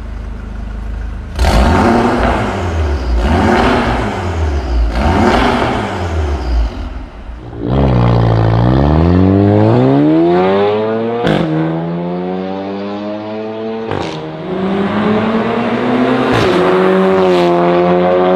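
Audi TT MK3 2.0T's turbocharged four-cylinder through a Fi Exhaust full system with a 100-cell downpipe and valvetronic muffler: idling, then four quick free revs. It then accelerates hard, the engine note climbing through the gears, with a sharp crack at each of two upshifts.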